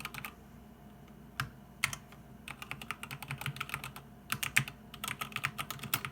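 Typing on a SteelSeries Apex Pro mechanical keyboard with OmniPoint switches: rapid runs of key clicks, broken by a short pause about a second in with a couple of single keystrokes.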